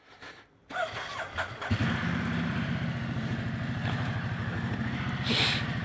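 Ducati Multistrada 1200's L-twin engine being started: the starter cranks for about a second, the engine catches, and it then idles steadily. A brief hiss comes near the end.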